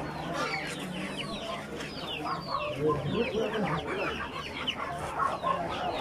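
Caged chickens and other birds clucking and chirping: a dense chorus of short, high, falling chirps over lower clucking calls.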